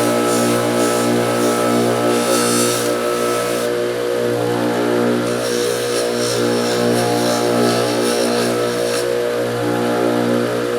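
Electric bench grinder motor running with a steady hum. Rough, hissing noise swells and fades twice as the pliers are pressed against the spinning wheel.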